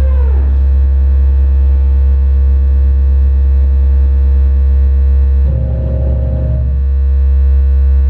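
Live experimental electronic noise music: a loud steady low drone under a pitched, theremin-like tone that slides downward just after the start. About five and a half seconds in, a burst of crackling, distorted noise with a higher held tone comes in for about a second.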